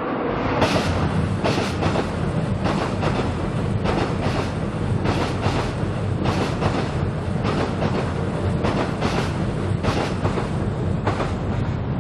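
Seoul Subway Line 7 train crossing Cheongdam Bridge overhead: a steady low rumble with many sharp clacks of the wheels over rail and bridge joints, coming at uneven intervals.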